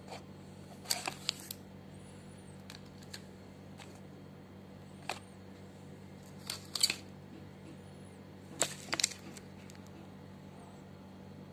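Handling the packaging of a Poco M4 Pro phone box: scattered clicks and short rustles of cardboard and plastic as the contents are lifted out. They come in small clusters about a second in, around five and seven seconds, and near nine seconds, over a steady low hum.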